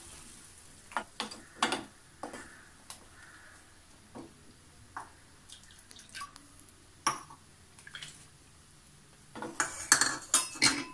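Wooden spatula knocking and scraping against a metal pan while stirring a thick, wet paste. Scattered taps, with a quick run of louder knocks near the end.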